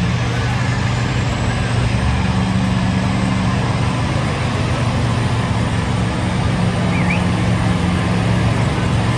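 Mega truck's engine running loud and steady, with a constant low hum.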